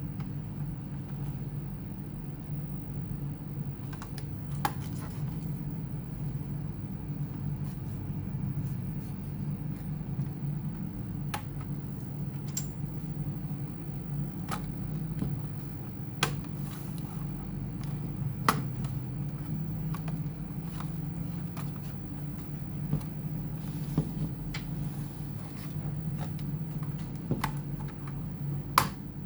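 Small sharp clicks and taps, scattered every few seconds, from hands and a screwdriver working on a laptop's screws and plastic casing, over a steady low hum.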